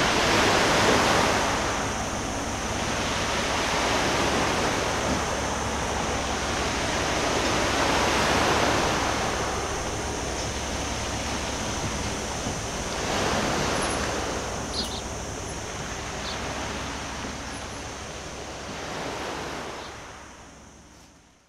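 Sea waves washing in slow swells, rising and easing every four seconds or so, over a faint steady low hum; the sound fades out at the end.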